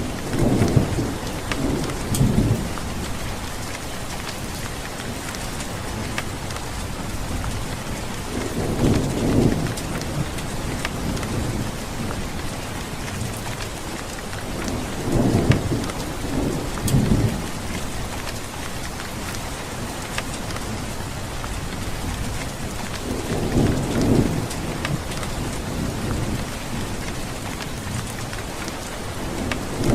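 Steady rain pattering with low rolls of thunder rumbling up and fading away about every seven seconds.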